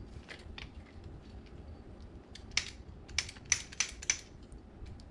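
Sharp clicks from a hand-pumped hydraulic crimping tool, a couple early and then a quick run of about five, roughly three a second, in the second half. The handle is being pumped to close the jaws and hold the cable terminal still before the crimp.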